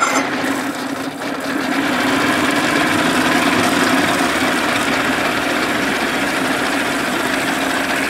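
1987 Johnson 70 hp three-cylinder two-stroke outboard running in neutral, just restarted. It dips briefly about a second in, then idles steadily.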